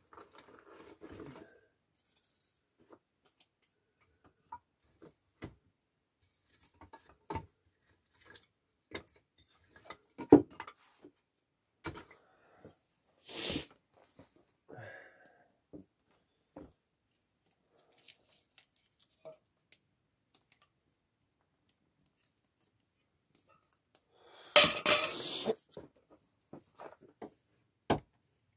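Wood fire catching in a small metal stove, crackling with sparse sharp pops and clicks, the loudest about ten seconds in, and a couple of seconds of dense crackling near the end.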